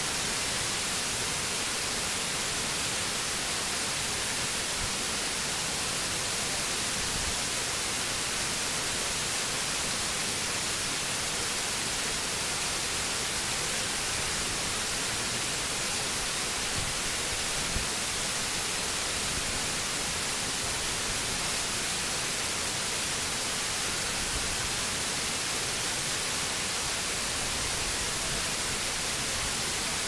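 Man-made waterfall cascading over rockwork into a pool: a steady rush of falling water.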